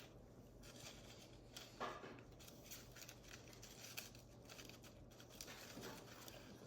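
Faint crunching and chewing of a hard, cinnamon-dusted dessert taco shell, heard as scattered small crackles and clicks.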